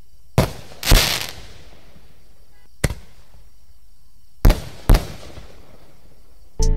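Lesli Twin Burst firework mines firing in sequence. First comes a bang followed at once by a bigger burst with a hissing tail, then a single sharp bang, then two sharp bangs about half a second apart.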